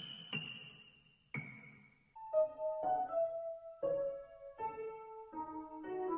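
Slow background piano music, single notes one after another that ring and fade. The first few notes are high, and the melody moves lower from about two seconds in.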